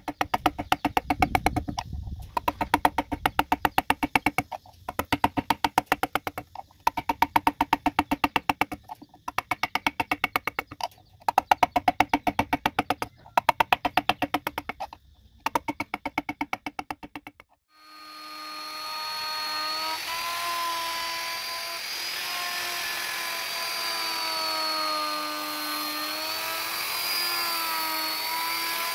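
A wood-carving gouge driven by rapid mallet taps, in runs of about two seconds with short pauses, ringing with each strike. A little over halfway through it gives way to a hand-held electric wood router spinning up and running steadily, its whine dipping and rising in pitch as it cuts.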